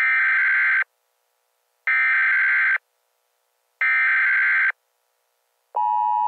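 Alert buzzer sounding three times: identical harsh buzzes, each just under a second long, about two seconds apart. Near the end a lower steady tone starts and holds.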